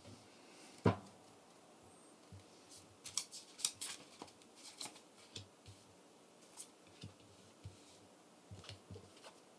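Faint, scattered clicks and light taps of tarot cards being handled and moved on the table. There is a sharper knock about a second in and a quick run of clicks in the middle.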